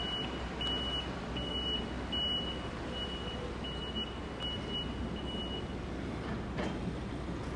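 Backup alarm of a construction vehicle beeping, a single high tone repeated about every three quarters of a second, stopping about three quarters of the way through, over steady background noise.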